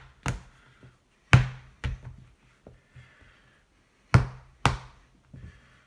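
Sharp slaps and knocks as pizza dough is handled on a marble worktop: a single one near the start, then two pairs about half a second apart, the second pair nearly three seconds after the first.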